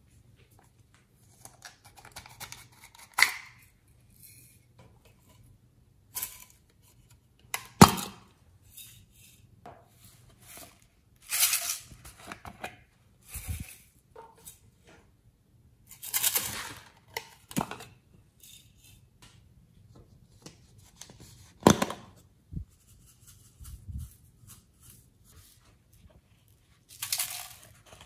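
Small plastic containers being handled and opened, with sharp plastic clicks and snaps, and short rattling bursts as glitter and sprinkles are shaken out onto slime in a glass bowl.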